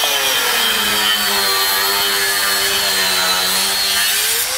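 Angle grinder with a thin cutoff wheel cutting into aluminum pipe, a loud steady whine under load; near the end the motor's pitch rises.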